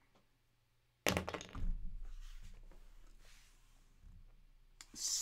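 A twelve-sided die thrown onto the table: a sudden clatter about a second in that dies away over the next couple of seconds.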